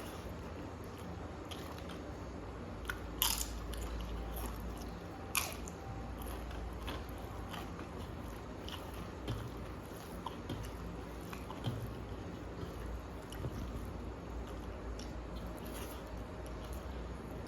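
Close-up eating and chewing, with two loud crisp crunches about three and five seconds in, bites of crisp papad, and softer chewing clicks in between.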